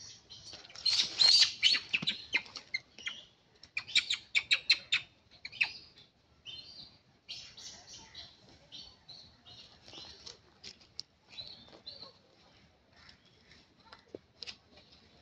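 Small birds chirping in quick, sharp high-pitched notes, densest and loudest about a second in and again around four seconds in, then fainter and scattered.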